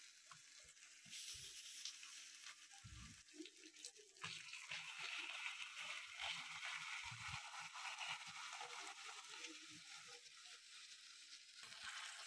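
Faint sizzle of raw turkey pieces frying in sesame oil with onions in a kadai, with occasional scrapes and knocks of a slotted metal spatula stirring them. The sizzle grows louder about four seconds in.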